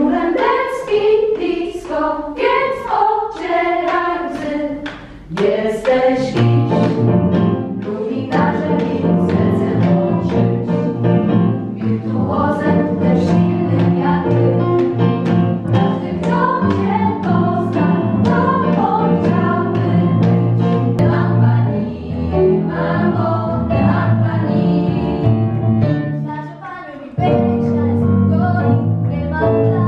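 Women's voices singing together as a small vocal group, with a fuller, steadier lower part joining about six seconds in. The singing dips briefly shortly before the end, then carries on.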